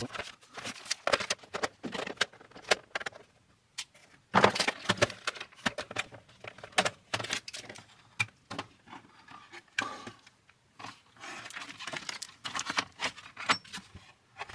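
Irregular clicks, taps and plastic clatter as a Commodore 64's plastic case is handled and opened, its top shell lifted off the base. A louder cluster of knocks comes about four seconds in.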